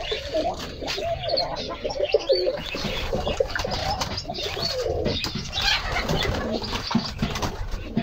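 Domestic pigeons cooing repeatedly, with short wing flaps as they crowd and bathe at water basins.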